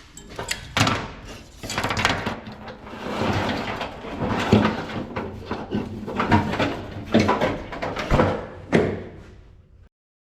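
Handling noise from hands-on shop work: irregular knocks, bumps and rustling, cutting off abruptly near the end.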